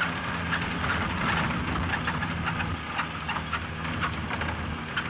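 Truck engine running as it drives over a rough dirt road, with the truck bed rattling and knocking in quick, irregular clatters.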